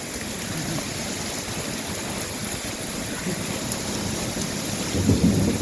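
Heavy rain pouring down steadily. A low rumble of thunder starts near the end.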